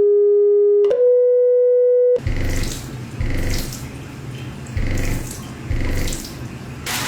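Steady electronic tone of the kind used to drive cymatics patterns, stepping up in pitch about a second in and cutting off about two seconds in. It is followed by a rushing, hiss-like noise with low surges every second or so.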